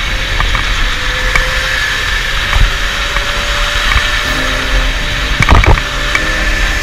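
Electric go-kart running at speed on an indoor concrete track, heard from a camera on the kart: a steady motor whine over loud rolling noise, with a short cluster of knocks about five and a half seconds in.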